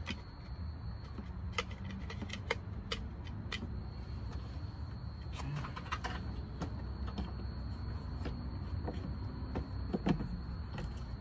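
Scattered short clicks and knocks of plastic light connectors and trim being handled and snapped together while wiring a car's front lights, over a steady low rumble. The loudest knock comes about ten seconds in.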